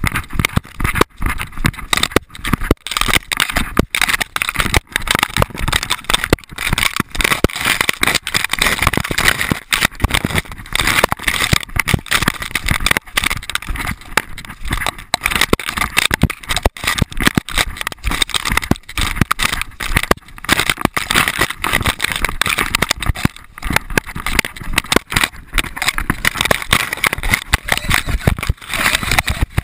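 A dog-mounted GoPro Hero2 being jolted and brushed as the dog runs through brush: rapid, irregular knocks and rattling over a steady scraping and rushing of branches and leaves against the camera housing.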